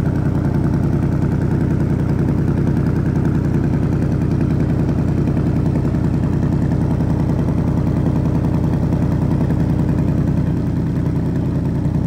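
Ford Mustang GT 2024's 5.0-litre Coyote V8 idling steadily through its exhaust, warming up just after a remote start; it goes slightly softer about ten and a half seconds in.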